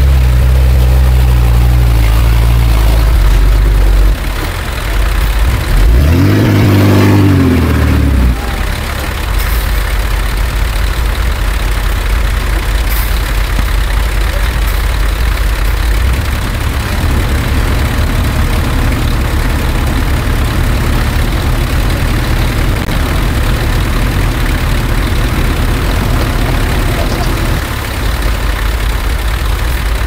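Komatsu D20P bulldozer's diesel engine running steadily, revving up and dropping back about six to eight seconds in, then running on with a fast, even clatter.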